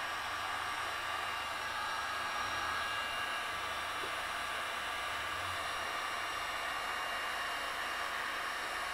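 Corded heat gun running steadily on a high setting: a constant blowing hiss from its fan with a faint steady whine, as it heats a vinyl decal to soften the adhesive.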